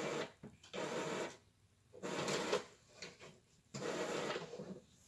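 Printer mechanism running in three short bursts about a second and a half apart, with the printer out of paper.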